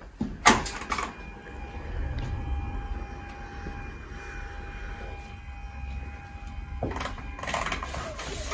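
A few sharp knocks and clicks, the loudest about half a second in, then a steady hum with a faint high whine that cuts off suddenly about seven seconds in, followed by more clicks and rustling.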